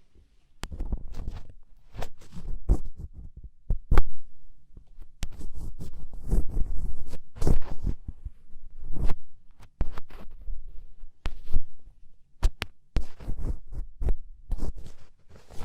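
Ear pick scraping and working loose earwax inside an ear canal, heard close up as irregular crackling scrapes and clicks over low rumbling thuds.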